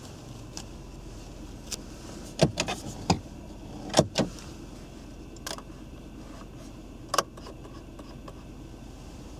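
A hand handling the hard plastic dashboard and the air-vent controls of a Skoda Octavia II cabin: a series of sharp clicks and knocks, the loudest around two and a half seconds and four seconds in, over a low steady hum.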